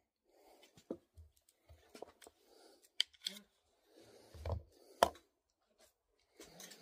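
Handling noise: scattered sharp clicks and knocks with rustling in between, the loudest click about five seconds in.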